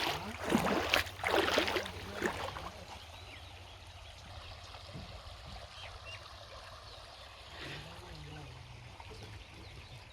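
River water splashing and running: louder splashes in the first couple of seconds, then a quieter steady flow.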